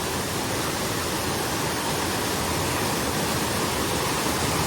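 Steady, loud rush of water from a rain-swollen mountain stream cascading over its falls.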